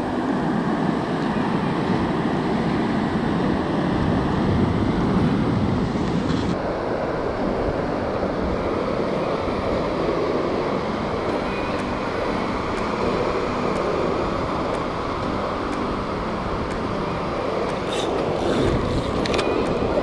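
Steady rushing noise of surf breaking on the beach mixed with wind buffeting the microphone, with a few light clicks near the end.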